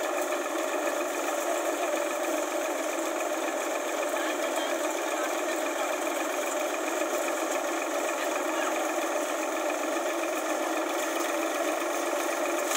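Sonalika tractor's diesel engine running steadily, driving a hitched thresher used for threshing chickpeas, in an even mechanical whir.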